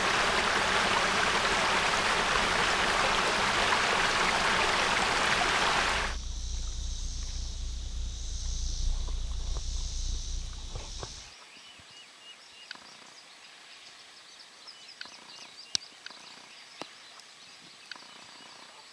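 A small creek rushes over rock ledges in a steady, loud hiss for about six seconds. The sound then changes abruptly to a lower rumble with a high hiss. After about eleven seconds it drops to a much quieter outdoor background with scattered faint ticks and chirps.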